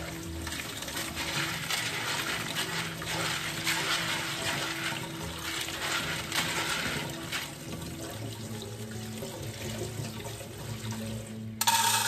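Kitchen tap running into a plastic colander of fresh beans in a steel sink, the water splashing as hands rub the beans under the stream. Near the end comes a sudden, louder clatter as the beans are tipped into a metal pressure cooker.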